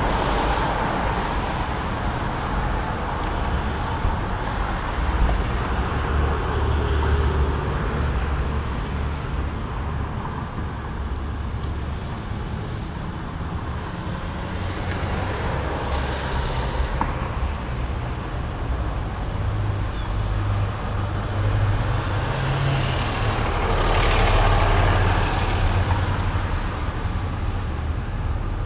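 A continuous low rumbling noise, with hissy swells that build and fade about halfway through and again near the end.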